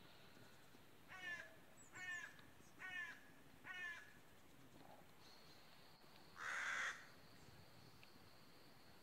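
A crow cawing four times in a row, about one harsh call a second. About six and a half seconds in comes a brief burst of noise, the loudest sound.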